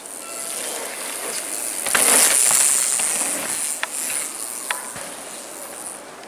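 Downhill mountain bike passing close on a dirt track: a rush of knobby tyres over dirt and dry leaves that swells to its loudest about two seconds in, then fades as the bike rides off, with a few sharp clicks.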